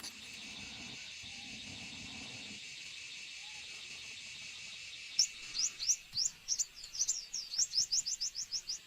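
A songbird sings a quickening run of short, high, downslurred notes, starting about five seconds in, over a steady insect drone.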